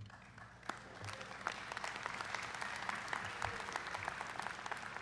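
Audience applauding in a large hall, building up about a second in and holding steady.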